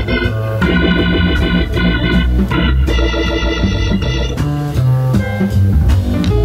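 Hammond organ playing a fast bebop jazz improvisation in sustained note runs. About four and a half seconds in, the organ stops and a piano carries the solo on, over a moving bass line.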